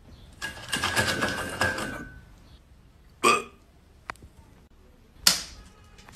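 Two short, sharp slaps about two seconds apart as strips of meat treat drop onto a wooden parquet floor, after a brief noisy rustle.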